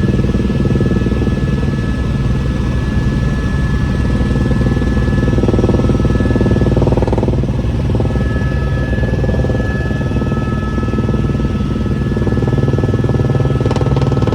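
Helicopter running steadily: a dense low rotor chop under a thin, steady turbine whine that shifts pitch about halfway through.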